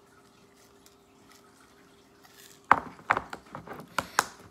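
Faint steady hum, then a little past halfway a quick run of six or seven sharp taps and knocks: handling noise from things being moved and set down on a table.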